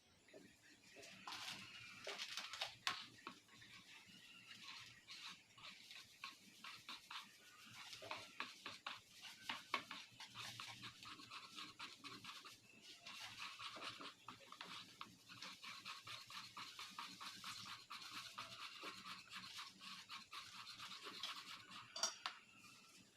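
Faint, fast run of small clicks and scrapes, typical of a utensil beating a mixture in a bowl, such as pancake batter being mixed, with short pauses along the way.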